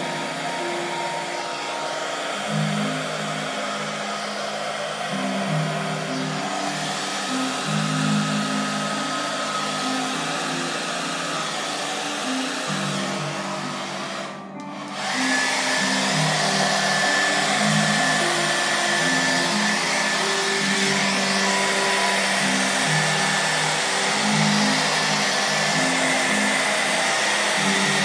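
Hair dryer blowing steadily; its sound drops out briefly about halfway through and comes back louder.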